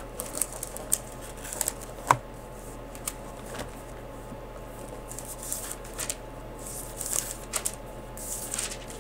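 Bible pages being flipped and rustled to find a passage: irregular papery flicks and rustles, some sharper than others, over a faint steady hum.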